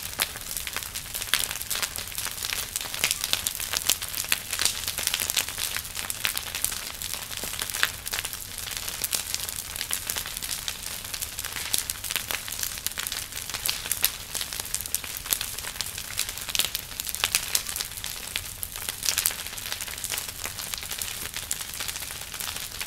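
Large fire burning and crackling steadily, a dense run of sharp pops and snaps.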